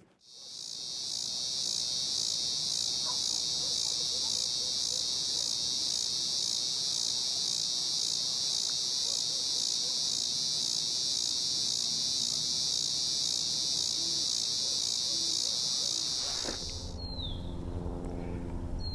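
Chorus of summer insects: a loud, steady, high-pitched buzz with a fast even pulse. It cuts off suddenly near the end, and a few short falling bird chirps follow.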